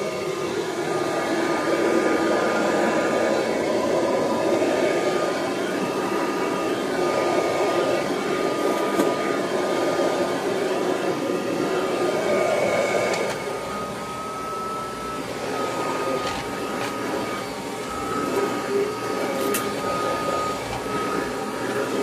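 Kirby Heritage II Legend upright vacuum cleaner running steadily with a constant whine as it is pushed over the floor. A few sharp clicks come through in the second half.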